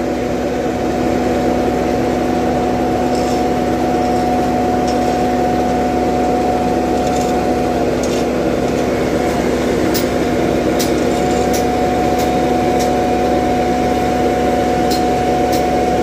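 Asphalt paver's engine and machinery running loudly and steadily while laying hot asphalt. It makes a constant drone with a steady, even whine, and a few faint clicks or ticks come through.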